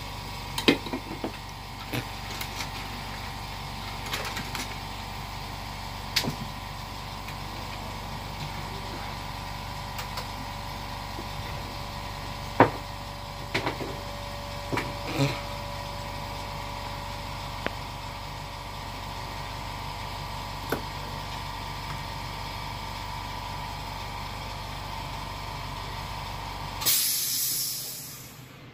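A small electric blower or fan motor running with a steady hum and faint whine, with scattered light clicks and taps of hand tools. About 27 seconds in, a short rush of hiss comes, and the motor cuts off.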